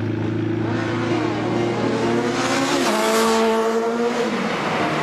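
Sport motorcycle engine running, then revving up: its pitch climbs sharply about halfway through and drops away again near the end.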